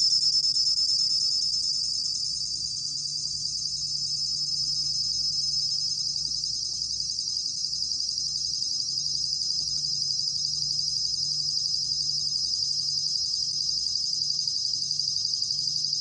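A 곰방울벌레 cricket singing a continuous, rapid high-pitched trill, recorded at 21 °C.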